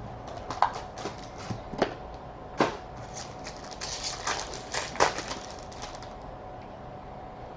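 Trading cards and their packaging handled by hand: a quick run of sharp clicks and snaps for about six seconds, then it stops.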